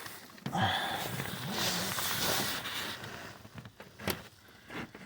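Rustling, scraping handling noise as hands and probes work down into the engine bay, followed by a single sharp click about four seconds in.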